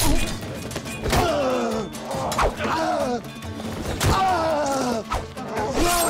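Sword-fight sound effects over dramatic score music: a sharp strike about every second or two, each followed by a man's cry of pain that falls in pitch.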